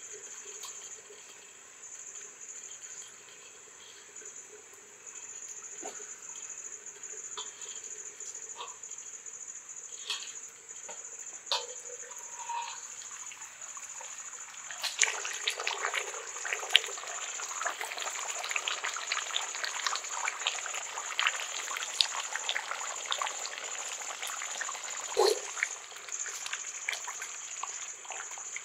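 Thick chicken gravy bubbling in an iron kadai over a wood fire, with scattered crackles at first. About halfway through, the bubbling turns dense and continuous.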